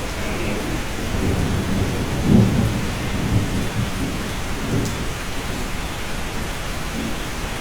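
Steady rain with a low roll of thunder rumbling through it, swelling to its loudest a little over two seconds in and dying away by about halfway.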